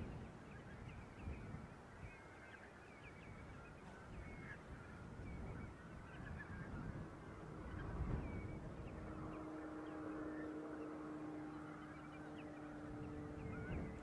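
A flock of coastal birds calling constantly with short, high honking calls over a low rumble. About halfway through, a steady motor hum comes in underneath.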